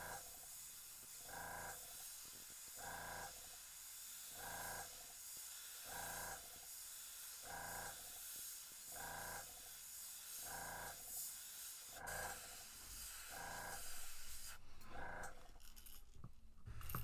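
Airbrush hissing steadily as it sprays paint onto a lure, stopping about three seconds before the end. Under the hiss, a low whooshing pulse repeats about every one and a half seconds.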